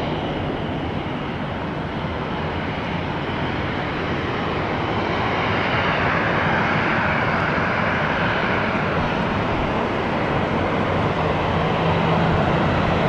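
Jet airliner engines running: a steady rushing sound that grows louder about halfway through, with a low steady hum coming in near the end.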